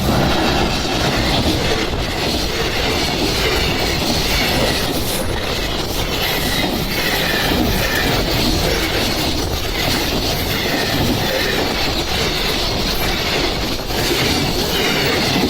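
A train passing close by, loud and steady, its wheels clattering over the rail joints.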